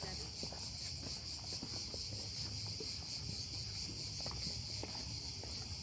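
Steady, high-pitched chorus of insects shrilling without a break, with a low rumble and a few faint ticks beneath it.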